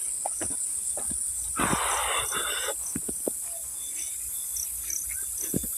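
Crickets chirring steadily in a high continuous trill, with scattered footsteps as someone walks over dirt and grass, and a brief rustling noise about a second and a half in.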